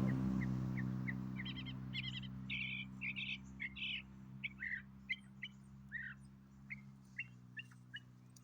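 A bird giving a run of short, varied chirps, some in quick clusters and some dropping in pitch, which the uploader thinks may be a young mockingbird calling. A steady low hum runs underneath.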